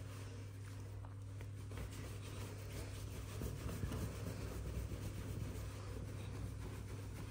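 Towel rubbing a wet cat's fur as it is dried, a soft, faint rubbing that gets busier about halfway through, over a steady low hum.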